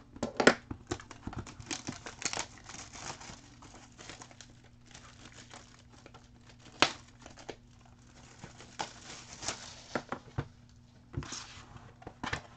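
Hands handling a cardboard hobby box of foil-wrapped trading card packs: crinkling and rustling with scattered sharp taps and clicks. The loudest tap comes about half a second in, and another comes just before the seven-second mark.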